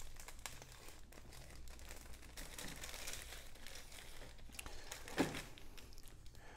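Clear plastic bag crinkling as the plastic model-kit sprues inside it are handled and lifted, with one short thump about five seconds in.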